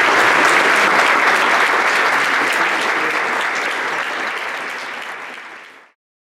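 Audience applauding, a dense steady clapping that fades after about four seconds and cuts off just before the end.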